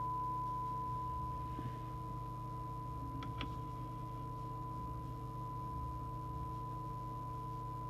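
SMC Oscar 1 FM CB radio receiving an S9 test signal from a signal generator, its speaker putting out a steady single-pitch test tone for the SINAD check, with a low mains hum underneath. A couple of faint clicks come about three seconds in.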